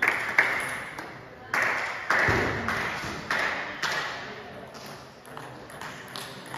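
Table tennis hall ambience: a handful of sharp taps and one thud echo off the walls of a large gym, with voices in the background.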